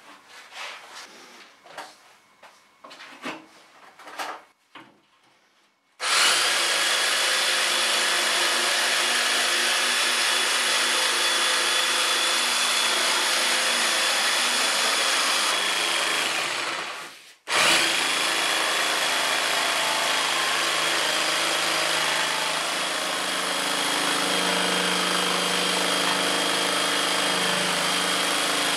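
Corded Craftsman jigsaw with a coarse wood-cutting blade sawing through half-inch cement board: a steady whine over a rasping noise that starts about six seconds in, cuts out briefly a little past the middle, then runs on again. Before it come a few faint handling clicks and rustles.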